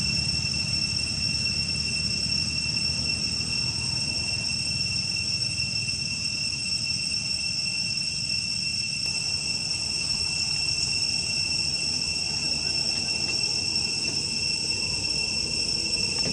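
Insect chorus: a steady, unbroken high-pitched drone over a low rumble.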